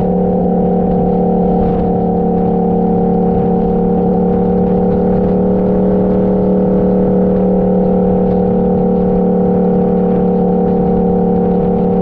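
Motorcycle engine running at a steady cruising speed, its pitch holding level with no change in throttle.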